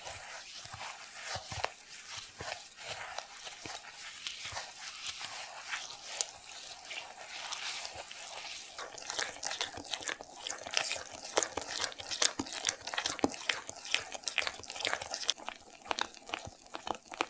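Silicone spatula stirring milk into finely ground Oreo cookie crumbs in a glass bowl: a dense run of wet, gritty crackling and scraping that grows louder about halfway through as the crumbs turn into a thick batter.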